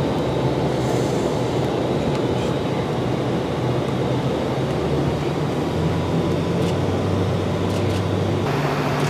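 Steady drone of engines and rushing air heard inside the cabin of an airborne jet, with a low hum under it; the tone shifts slightly near the end.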